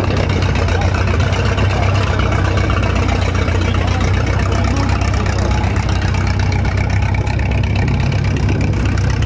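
An engine idling steadily, a constant low hum with no change in speed.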